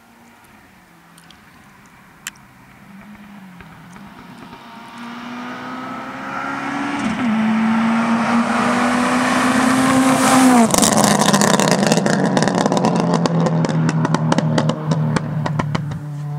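2002 Subaru Impreza Type R's turbocharged flat-four with a de-catted Blitz exhaust, accelerating hard as it approaches from far off, growing from faint to loud. Its engine note climbs and drops at gear changes about seven and eleven seconds in; after the second shift a rapid crackle of anti-lag pops and bangs from the exhaust.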